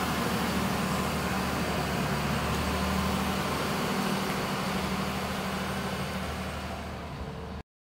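2014 Caterpillar 972M wheel loader's six-cylinder diesel engine running steadily as the loader drives and turns, growing a little fainter as it moves away. The sound cuts off abruptly near the end.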